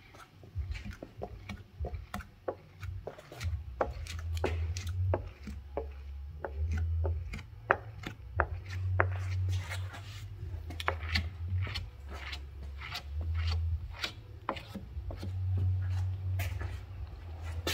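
Irregular small taps, clicks and rubs of fingers and a cloth pressing and wiping tint film on flat window glass, working water out from under the film. Under them, a low hum swells and fades several times.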